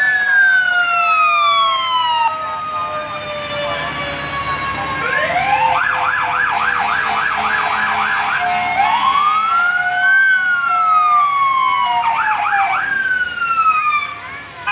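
Electronic sirens on passing STAT EMS emergency vehicles. A slow wail rises and falls, switches about six seconds in to a fast yelp of about four sweeps a second, goes back to the wail, then gives a brief yelp before stopping near the end. A second, fainter siren wails underneath.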